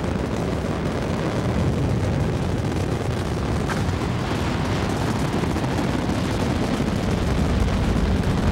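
Space Shuttle Atlantis at launch: the combined noise of its two solid rocket boosters and three main engines in a steady, deep rumble as it climbs away just after liftoff. The rumble grows slightly louder near the end.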